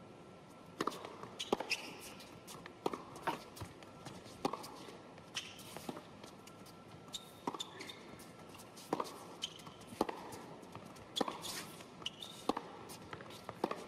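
Sparse, irregular knocks of a tennis ball bouncing on a hard indoor court and of footsteps, over a quiet arena hush with a faint steady tone.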